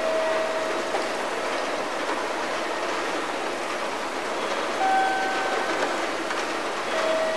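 Railway station platform ambience between announcements: a steady wash of background noise, with a short high steady tone near the start, again about five seconds in, and near the end.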